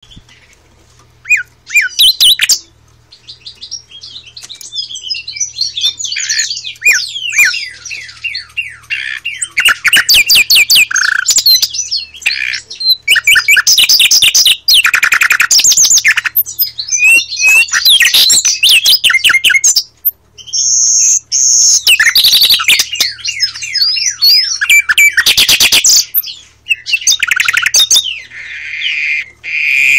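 Nightingale singing loudly close to the microphone: separate song phrases with short pauses between them, mixing quick runs of whistled notes with fast rattling trills of repeated notes. A faint steady low hum runs underneath.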